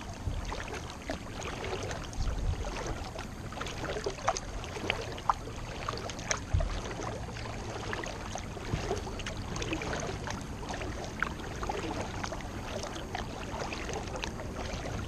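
Kayak paddling: the paddle blades dip and splash in the water with steady trickling and dripping. Several dull low thumps stand out, the loudest about two and a half and six and a half seconds in.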